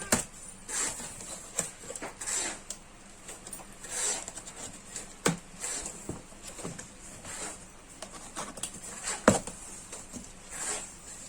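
Cardboard carton being opened and its packing handled: irregular rustling and scraping with scattered knocks and clicks, the sharpest about nine seconds in.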